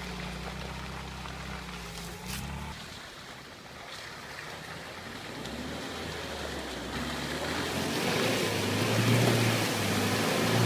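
UAZ engine running under load. Its low note drops off about two and a half seconds in, then it builds again from about seven seconds along with a rising rush of tyres churning through water on a flooded dirt track.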